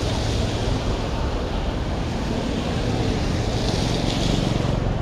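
Wind rushing over the microphone of a camera moving through street traffic, over a steady low rumble. Near the end comes a louder hiss, like tyres on the wet road.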